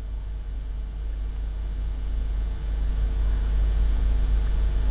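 A low rumble under a steady hum, the rumble growing louder about halfway through.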